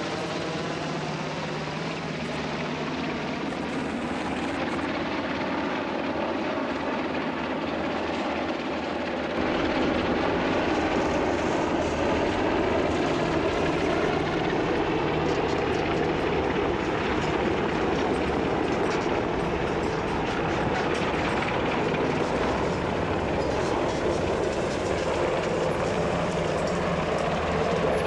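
UH-60 Black Hawk helicopters flying low overhead: a steady rotor and turbine din with pitches sliding up and down as they pass, growing louder about nine or ten seconds in.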